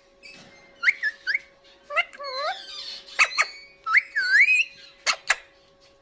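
Alexandrine parakeet making a series of short whistled calls that bend up and down in pitch, with a few sharp clicks between them.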